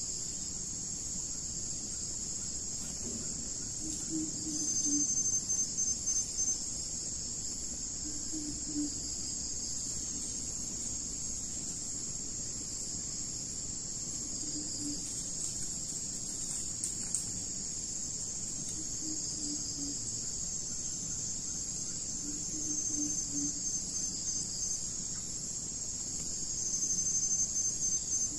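Dense, steady high-pitched insect chorus, swelling a few times into a louder pulsing buzz.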